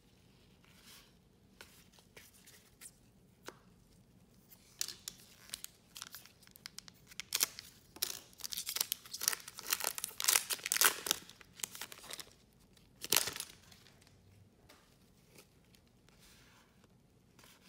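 A trading-card pack wrapper crinkling and tearing open: a run of crackling rips through the middle with one last burst after it, between soft clicks and rustles of cards being handled.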